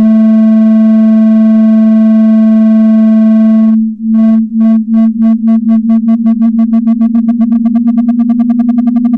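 Synthesized electronic buzzing tone, held steady for about four seconds, then cut off briefly and switched on and off in pulses that get faster and faster.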